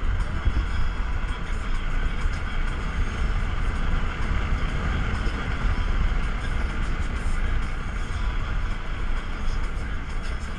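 Wind and tyre noise inside a moving Tesla Model S with its panoramic sunroof open: a steady rush over a low, unsteady rumble, with no engine sound from the electric drive.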